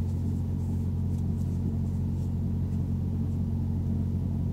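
Steady low hum of several even pitches layered together, unbroken and unchanging, like a running motor or engine.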